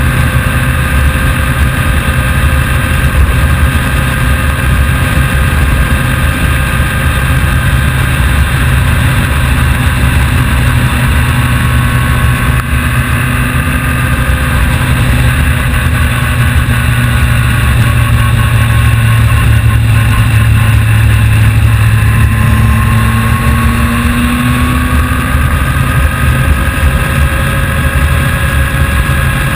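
Engine of a vehicle being ridden, running steadily, with a brief rise in pitch about three-quarters of the way through.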